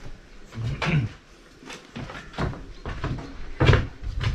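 A series of separate knocks and clunks, the loudest about three and a half seconds in.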